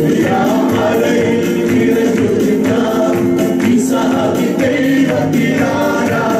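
A man singing a Malayalam Christian worship song into a microphone, with keyboard accompaniment and several voices singing along.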